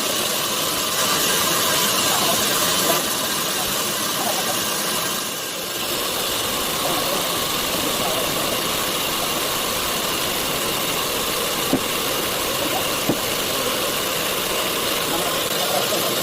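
Sawmill machinery running with a steady mechanical noise. It dips briefly about five seconds in, and two short clicks come near the end.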